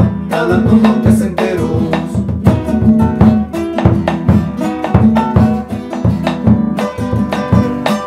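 Two acoustic guitars playing a bambuco in a brisk, lilting rhythm: strummed chords under a plucked melody.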